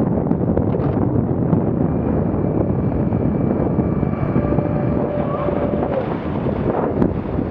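Wind buffeting the microphone over a small motorboat under way, with water splashing along its hull and a faint steady whine from its outboard motor.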